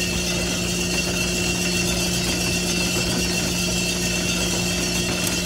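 Drum sample roaster running: a steady machine hum and fan noise from the rotating barrels and burner. It is mid-roast at first crack, and the cracks of the beans are very quiet, hard to pick out over the machine.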